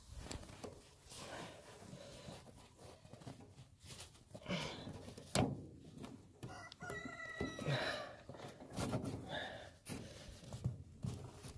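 Gloved hands working woven-wire fence wire around a wooden post in snow: the snow crunches and the wire scrapes and rattles, with a sharp click about five seconds in. A rooster crows once, briefly, a little after the click.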